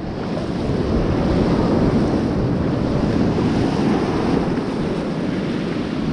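Shallow surf washing and foaming close to the microphone, a steady rushing noise, with wind buffeting the microphone.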